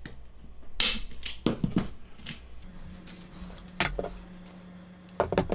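Plastic cable ties being snipped with cutters: a few sharp clicks and snips at uneven intervals, with light clatter of small parts being handled.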